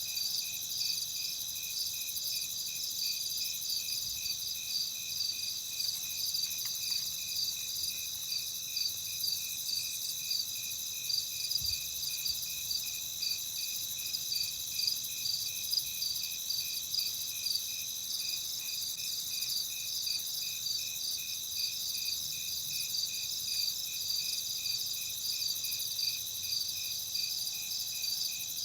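Night chorus of crickets chirping: several overlapping high, steady trills with a regular pulsing chirp, unchanging throughout.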